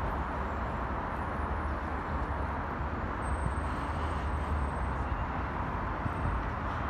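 Steady hum of distant road traffic, an even wash of noise with a deep rumble underneath.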